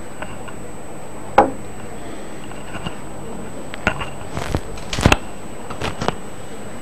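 Steady background hiss with a faint high whine, broken by a few scattered clicks and knocks: a sharp one about a second and a half in, then a cluster of small knocks about four to six seconds in.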